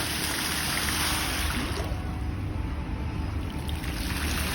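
Fountain water splashing: a steady rush of falling spray.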